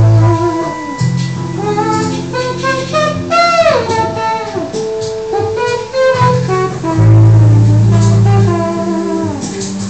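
Experimental electronic music: a sax-like lead melody with sliding pitch over long held bass notes.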